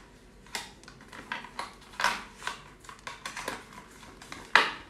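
A small cardboard advent-calendar box handled and pulled open by hand: a string of separate taps, scrapes and rustles of the card, with one louder crack near the end.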